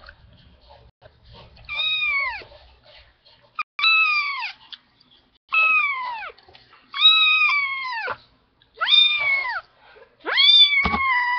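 A four-week-old kitten meowing loudly over and over: six long meows, each falling in pitch at its end. A short thump comes under the last one.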